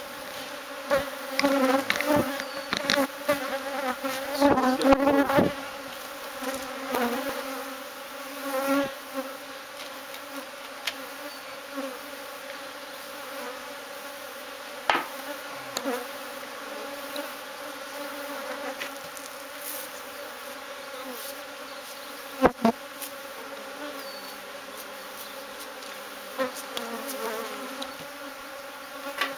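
A honeybee colony buzzing in a steady hum. Irregular knocks and rustles in the first several seconds, and a sharp knock about two-thirds of the way through.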